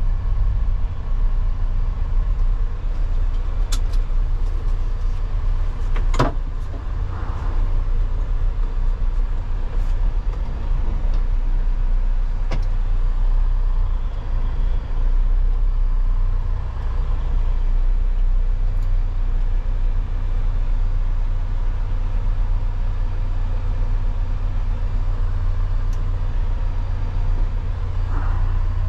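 Semi truck's diesel engine running with a steady low rumble, heard from inside the cab. A few short sharp clicks stand out over it.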